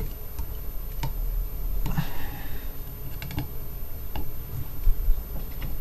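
Pliers clicking and scraping against the rim of an Audi A3 2.0 TDI throttle body housing as its edge is pressed and crimped over: a few scattered, irregular light clicks.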